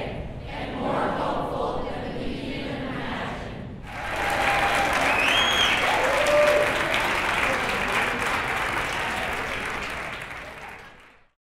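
A large group of people speaking a line together in unison, then, from about four seconds in, the crowd clapping and cheering with a few voices calling out, fading out near the end.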